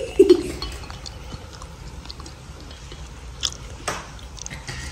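Sparkling wine being poured from the bottle into a glass champagne flute, a soft fizzing pour. A short voiced sound comes just after the start, and two light clicks come about three and a half and four seconds in.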